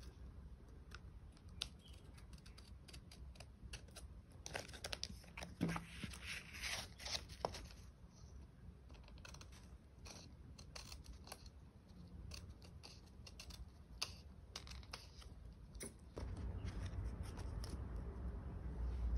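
Scissors snipping through a sheet of grid paper, with paper rustling, a rapid run of cuts loudest about five seconds in, then scattered light snips and taps as the paper is handled. A low hum comes up near the end.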